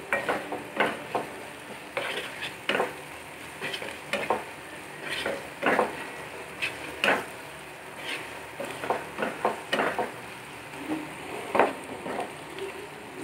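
A wooden spatula scrapes and stirs chopped onions, green chillies and crushed ginger-garlic frying in oil in a frying pan. A steady sizzle runs underneath irregular short scrapes of the spatula on the pan.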